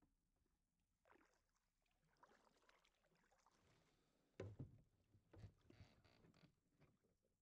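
Faint kayak paddling: water swishing and dripping off the paddle, with a couple of low knocks about four and a half and five and a half seconds in.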